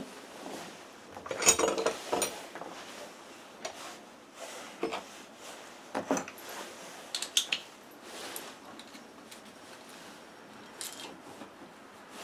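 Metal engine parts and hand tools being handled, clinking and knocking in an irregular series, with the loudest clanks about a second and a half in.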